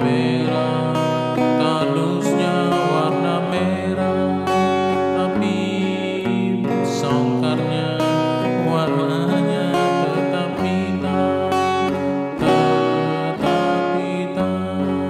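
Acoustic guitar strumming chords that change every couple of seconds, played through a TaffStudio V8 live sound card.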